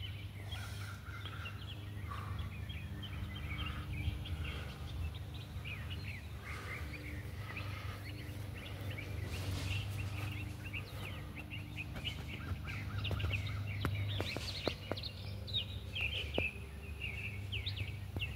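Many small birds chirping, over a steady low rumble. Near the end come a few sharp clicks and rustles of leaves and twigs being brushed.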